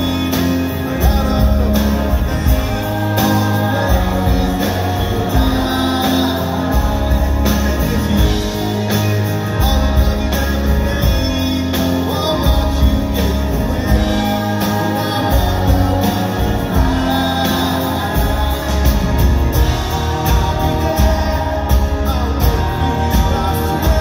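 Rock band playing live: a man singing lead over strummed acoustic guitar, with electric guitar, bass and drums keeping a steady beat.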